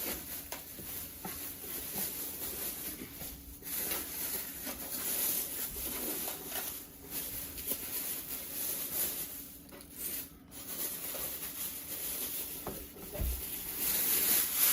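Rustling and handling noises as a newly unboxed PC case and its packaging are moved about, in uneven spells.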